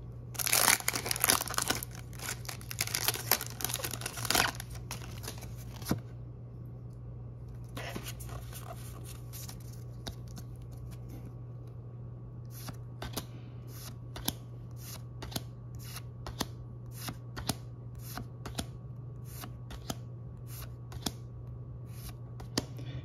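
A foil booster pack wrapper being torn open and crinkled for about four seconds, with another short crinkle a few seconds later. Then a run of short sharp clicks, about two a second, as the trading cards are flicked through one at a time.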